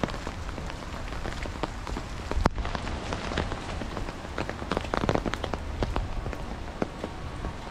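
Raindrops tapping on an umbrella overhead: irregular sharp taps over a steady hiss of rain, with one louder drop about two and a half seconds in and a flurry of taps around five seconds.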